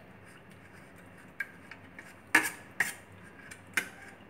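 Steel spoon clinking against a stainless steel bowl while mixing khoa into milk: four short clinks after a quiet start, the loudest about two and a half seconds in.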